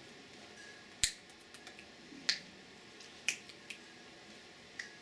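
Fingers snapping: three sharp snaps about a second apart, followed by two fainter ones.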